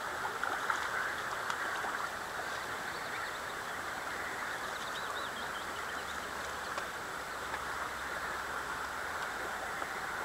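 Steady rushing outdoor background noise, with a few faint high chirps about five seconds in.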